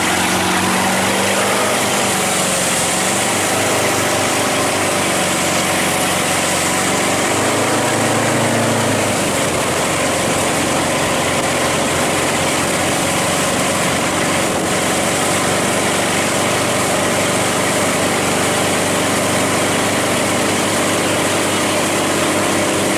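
Motorboat engine running at speed while towing, over the rush of churning wake water; the engine's pitch shifts over the first several seconds, then holds steady.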